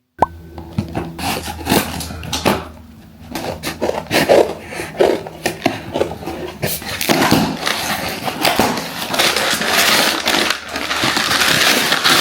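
Packaging being handled and unwrapped: irregular rustling and crinkling with many small clicks and knocks, growing busier and denser in the second half, then stopping abruptly.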